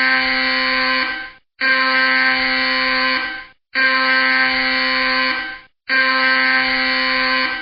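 Electronic alarm sounding in repeated loud blasts, each almost two seconds long with a short silent gap between, about one every two seconds. It is a harsh tone with many overtones that shifts slightly in pitch and fades just before each gap.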